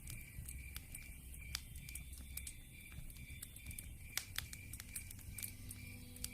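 Wood fire in a fireplace crackling: irregular sharp pops and snaps over a faint hiss.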